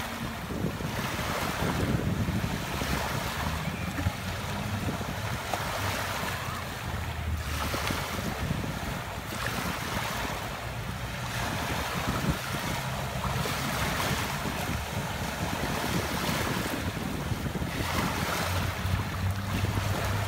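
Small waves lapping and washing up on a sandy, pebbly beach, the wash swelling and easing every few seconds. Wind rumbles on the microphone.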